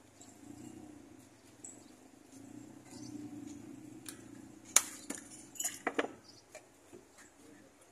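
Glasses and bottles clinking and knocking as a drink vendor handles them on his counter, scattered light taps with one sharp clink a little under five seconds in and a quick run of clinks about a second later, over a low steady background hum.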